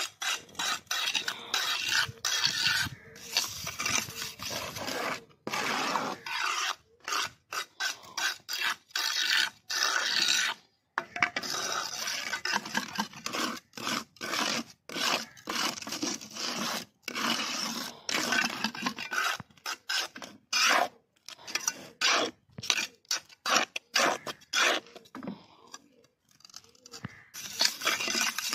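Steel hand trowel scraping and spreading cement mortar, in repeated rough strokes with short breaks between them.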